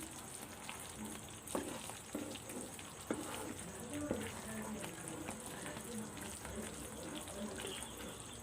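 Ladle stirring and scraping a thickening Mysore pak mixture of gram flour, sugar syrup and oil in a pan, with a few sharp knocks of the ladle against the pan.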